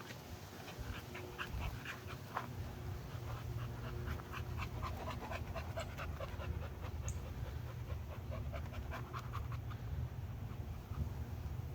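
Dog panting steadily, with many short ticks and a brief high chirp about seven seconds in.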